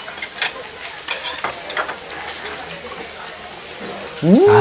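Pork belly (samgyeopsal) sizzling on a tabletop grill, a steady frying hiss with scattered crackling pops of fat. Near the end a person lets out a loud, drawn-out exclamation that rises then falls in pitch.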